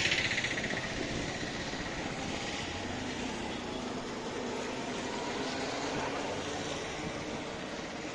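Steady street traffic noise: an even rumble and hiss with no distinct events.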